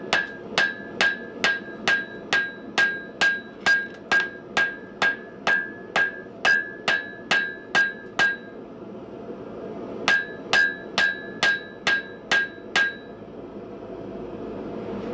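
Hammer blows on hot steel over an anvil, each strike ringing, about two to three a second in a steady rhythm. The blows stop about eight seconds in, then a second, shorter run follows and stops a couple of seconds before the end.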